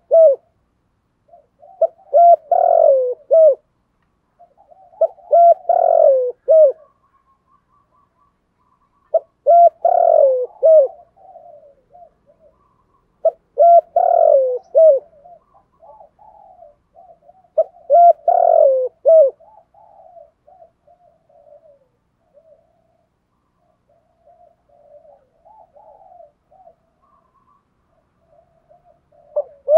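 Male spotted dove cooing in repeated phrases of several notes, about one phrase every four seconds; after five loud phrases the cooing turns softer and fainter near the end. This is the 'thúc gù' cooing that keepers play to stir a decoy dove.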